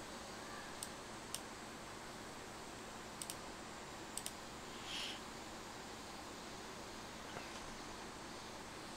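Sparse clicking at a computer, a few single clicks and some in quick pairs, over a faint steady hiss; a short soft hiss about five seconds in.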